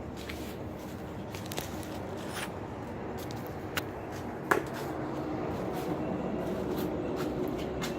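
Handling noise from a phone being taken off its mount and carried: rubbing and scraping on the microphone with scattered clicks and one sharper knock midway, over a steady low hum.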